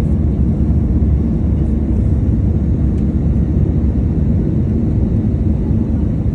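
Steady low rumble of an airliner in flight, its engine and airflow noise heard inside the passenger cabin.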